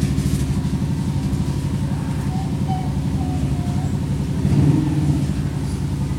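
A machine running with a low, fast throb, swelling briefly near the end and then cutting off suddenly.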